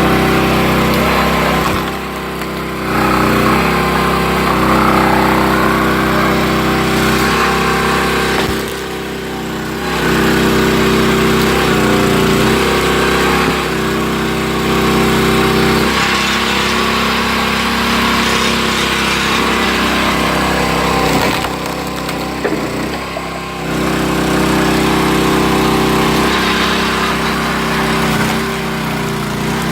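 Single-cylinder Loncin gasoline engine on a 22-ton log splitter running steadily, its note dipping briefly three times and then recovering.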